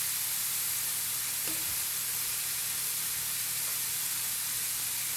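Frozen shrimp and chicken fried rice with onions sizzling steadily in a hot, oiled pan.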